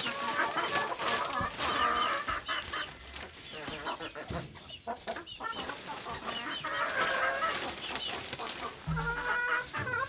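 Hens clucking repeatedly in short calls, over crinkling and rustling of a plastic sack of wood-shavings bedding as shavings are scooped out by hand.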